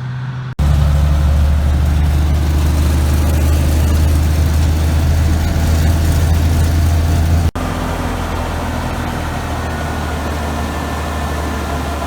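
Combine harvester engine running steadily while shelling corn, a loud low drone. About seven and a half seconds in it cuts to a somewhat quieter, steady engine drone.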